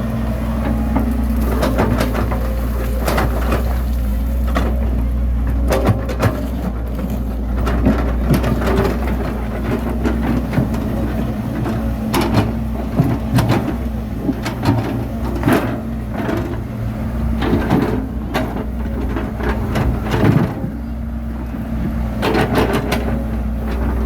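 Bulldozer's diesel engine running steadily under load, with frequent clanks and rattles from its steel tracks and blade as it works the soil.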